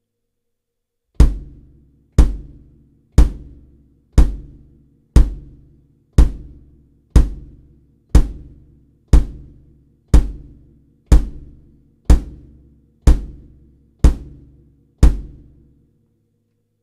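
Kick drum struck about once a second, fifteen single hits, each a deep thump that decays quickly, recorded dry through a Behringer BA-19A microphone placed inside the drum.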